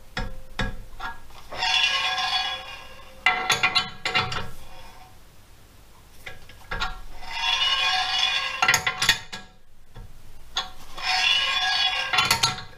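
Steel bar tapping the rim of an aluminium alloy wheel clamped in a lathe chuck, in short bursts of several quick metallic taps, nudging the wheel to centre it and cut its runout. Between the bursts come longer stretches of metallic ringing and rasping.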